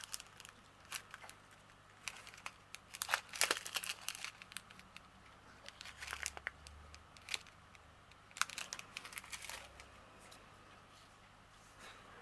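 Small plastic bags of diamond painting drills being handled, crinkling in short irregular bursts.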